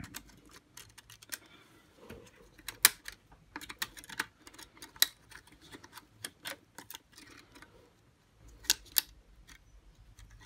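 Irregular sharp clicks and taps of hard plastic parts of a Dyson DC41 cyclone assembly being handled and pressed together while a spring is worked into place. The loudest clicks come about 3 s and 5 s in, and as a close pair near the end.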